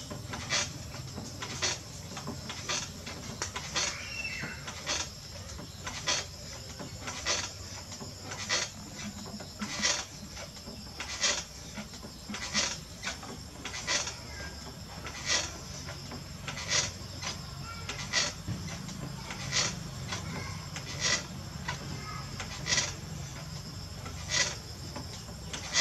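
Electric potter's wheel running with a low steady hum, while a short scraping squeak repeats roughly every second and a half as the wet clay jar turns under the potter's hands.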